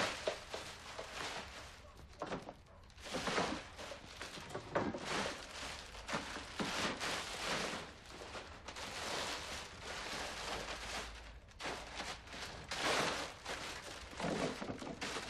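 A black plastic garbage bag rustling and crinkling in irregular bursts as clothes are stuffed into it.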